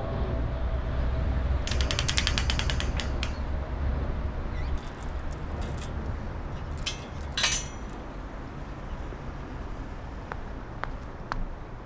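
A quick run of ratchet-like mechanical clicks about two seconds in, followed by scattered clicks and short rattles and a few sharp ticks near the end, over a steady low rumble.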